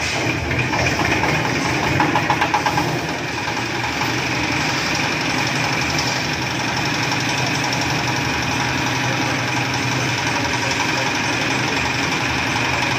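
Small single-cylinder diesel engine of a sago grating machine running, with a burst of rapid, louder knocks about two seconds in, then running steadily with a knocking chug.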